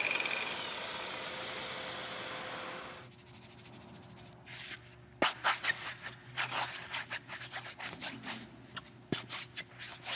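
A 7-inch angle grinder with a dust-shroud vacuum runs with a steady high whine and stops abruptly about three seconds in. After that, a work boot scuffs and rubs across the freshly ground polyurea repair on the concrete floor in quick, irregular strokes.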